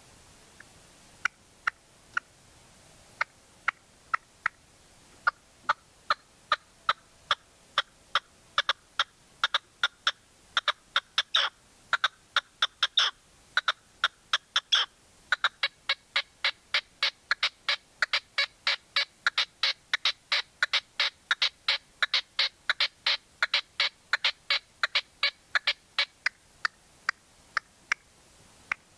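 Red-legged partridge calling: a long run of short, sharp call notes, sparse at first, then quickening to a steady two or three a second, with a couple of brief pauses near the middle.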